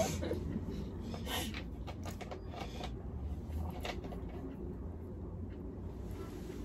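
Faint clicks and smacks of eating and sipping at close range, a few scattered over the first four seconds, over a steady low room hum.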